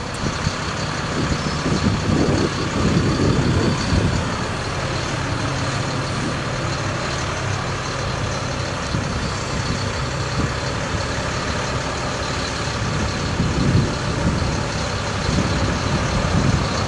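Ford F750 bucket truck engine running steadily while the Versalift aerial boom is lowered hydraulically toward its stowed position.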